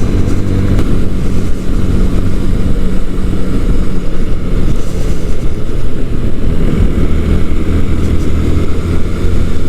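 Sinnis Akuma 125cc motorcycle engine running steadily under way, heard together with riding noise.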